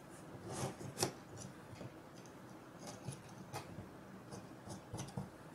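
Faint small clicks and light handling noise of M3 nylock nuts being fitted onto bolts in a 3D-printed plastic part, with a sharper click about a second in and a few more near the end.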